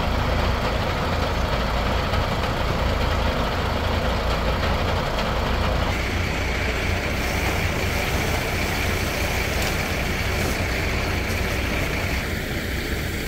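Large diesel engine of a heavy vehicle idling, a steady low rumble; about six seconds in a steady high-pitched tone joins it.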